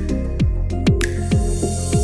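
Background music with a steady electronic beat: a kick drum about twice a second, sharp percussive ticks and held synth tones.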